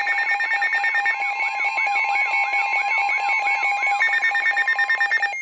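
NOAA Weather Radio warning alarm: the steady tone near 1 kHz, which is the 1050 Hz warning alert tone, mixed with alert receivers' alarms beeping rapidly and warbling up and down about two and a half times a second. The alarms cut off about five seconds in, signalling that a warning message is about to be read.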